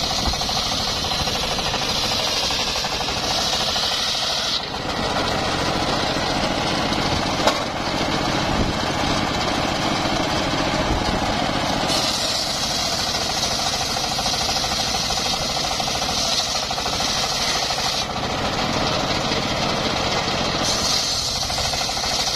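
Engine-driven homemade circular sawmill running and cutting mahogany, a loud continuous mechanical noise whose tone changes every few seconds as the blade's load shifts. One sharp knock about seven and a half seconds in.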